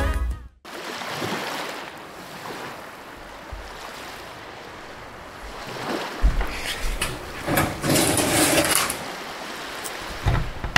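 Wind and sea noise with no music or speech, a steady hush that grows louder and more uneven about six seconds in.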